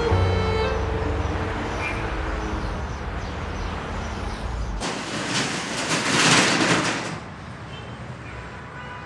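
Street traffic. A deep rumble with steady tones fills the first few seconds, then a vehicle passes close by, loudest about six seconds in, and the traffic noise carries on quieter.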